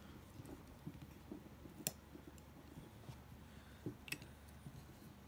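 Faint small taps and clicks of folding-knife parts and a driver being handled during disassembly, with two sharper clicks about two and four seconds in.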